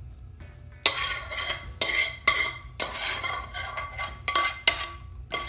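Metal spoon knocking and scraping against a metal cooking pan as curry is scooped out, the pan ringing with each knock: about seven sharp strikes, starting about a second in.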